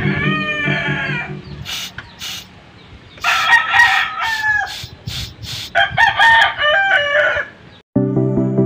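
A rooster crowing three times, each crow a long call of about one and a half to two seconds whose pitch holds and then drops. Background music plays under the first crow, stops, and comes back near the end.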